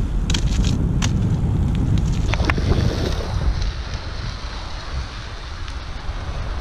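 Wind buffeting the microphone of a moving camera, with a steady low rumble. A few sharp clicks and knocks come in the first two and a half seconds.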